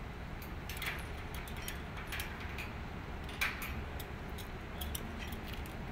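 Scattered sharp clicks and ticks at irregular intervals, the loudest about three and a half seconds in, over a steady low rumble.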